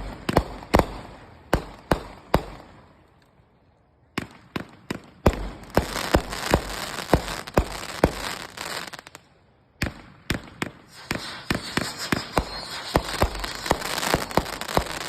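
Fireworks going off: a string of sharp bangs about every half second, then dense volleys of bangs and crackling from about five to nine seconds in and again from about eleven seconds in, with short lulls around three and ten seconds in.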